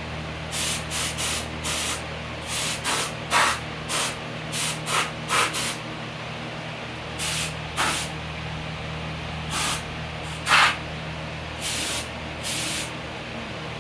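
Spray paint hissing in short bursts, many quick passes of a fraction of a second each, coming in clusters with a pause of about a second midway.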